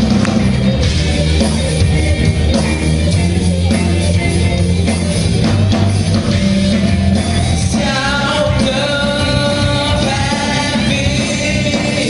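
Live rock band playing an instrumental passage: drum kit, bass and electric guitars. About eight seconds in, a sustained melodic lead line comes in over the band for a couple of seconds.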